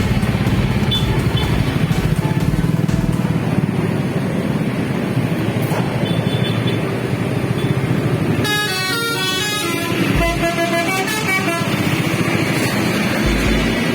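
Tour bus engines and tyres rumbling past, then a bus's telolet horn plays a quick run of changing notes about eight and a half seconds in, followed a moment later by a second, shorter phrase.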